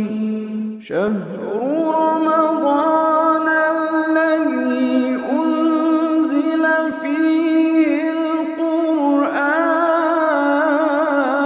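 Intro theme music: a male voice chanting a slow melody in long held notes that step from pitch to pitch with small ornamental turns, a new phrase starting about a second in.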